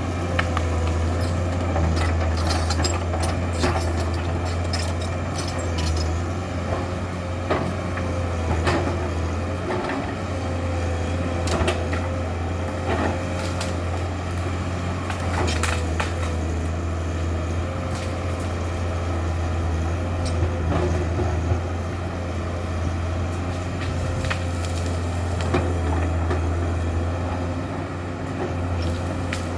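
Komatsu PC200-7 excavator's six-cylinder diesel running steadily under work, with scattered sharp knocks and cracks throughout.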